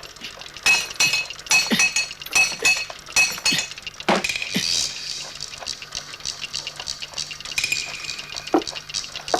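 A rapid series of sharp clinking impacts that ring on, then a bigger crash with a hissing shatter about four seconds in, and a few more hits near the end.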